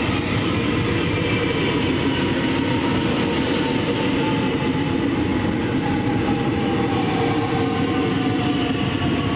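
X'trapolis electric multiple-unit train pulling into a station platform: steady rolling and running noise of the carriages going past, with a whine that falls slowly in pitch as the train slows.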